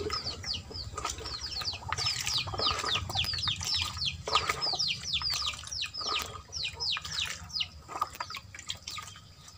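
A bird chirping rapidly, a fast run of short, high, down-slurred notes, several a second, with water sloshing as a plastic cup is dipped into a basin of rainwater.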